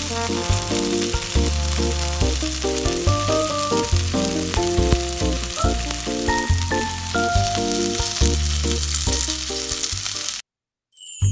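Spiced beef cubes sizzling as they fry in a nonstick grill pan, with background music over it. The sound cuts off abruptly about ten seconds in.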